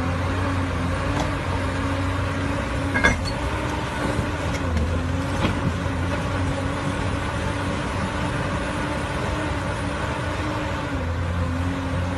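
Heavy machine's engine running steadily under load, its pitch wavering slightly up and down, with one sharp clank about three seconds in.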